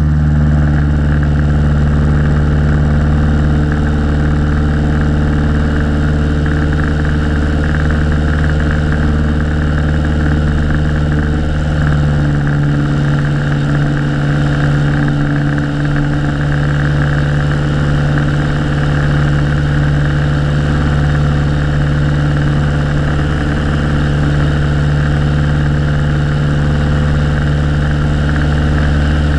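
Piper Colt's four-cylinder Lycoming O-235 engine and propeller droning steadily in flight, with a rush of airflow over an outside-mounted camera. The engine note changes slightly about twelve seconds in.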